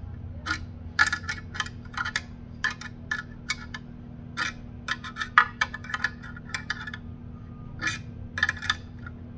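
Steel 9 mm wrench clinking against a nut and metal bracket while tightening the needle positioner's mounting nut on a sewing machine. It makes irregular sharp metallic clicks, several a second in bunches, with short pauses between turns.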